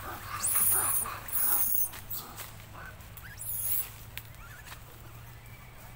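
Baby macaque squealing in short, very high-pitched cries, three times in the first four seconds, then falling quiet.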